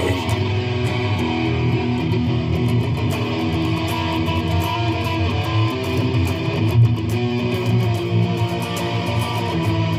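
A guitar playing held notes and chords.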